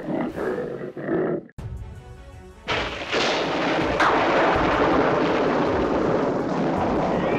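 Thunder sound effect: a rumble that starts a few seconds in, with a sharp crack about a second later, over background music.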